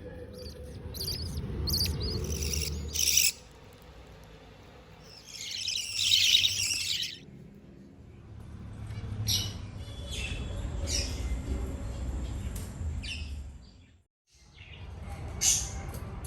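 Birds chirping in short, scattered calls, with a dense burst of chirping about five to seven seconds in, over a low rumble.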